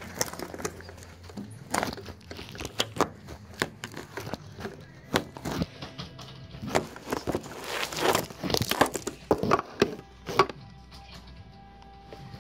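Rustling and knocking from a phone being handled and carried, clothing brushing against its microphone, in a run of short irregular knocks and rustles that grows busiest near the end; music plays in the background.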